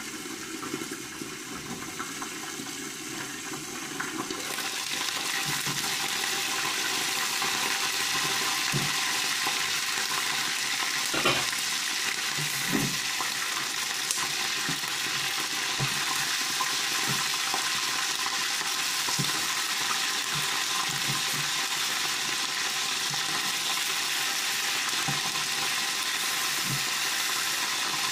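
Chicken pieces frying in hot oil in a pan, a steady sizzle that grows louder about four seconds in. A metal slotted spoon stirring the pieces knocks against the pan a few times.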